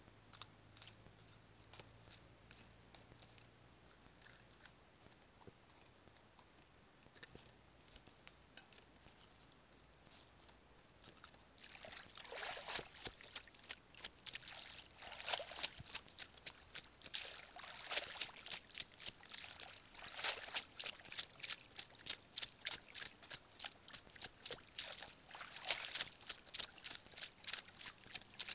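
Shallow seawater sloshing and trickling as someone wades over a reef flat. It is faint at first, then from about twelve seconds in becomes a dense run of quick, splashy crackles with louder surges every half second or so.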